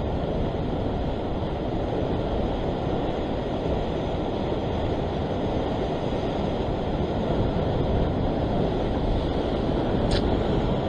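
Wind buffeting the microphone over the steady wash of sea swell breaking against the rocks below, a continuous low rumbling hiss. A brief high squeak sounds once near the end.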